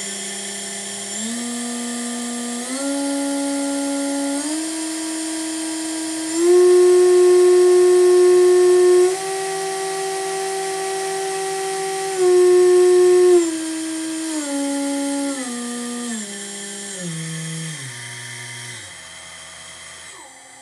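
Electric whine of a 2.2 kW water-cooled spindle motor run from a VFD, its pitch stepping up in several stages to full speed, holding there, then stepping back down in stages to a low speed near the end. The speed changes are set from the computer through the VFD.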